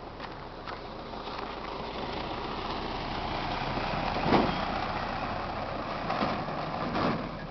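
Pickup truck driving past on a dirt track, its engine and tyres growing louder and loudest about four seconds in, with a couple of shorter swells near the end.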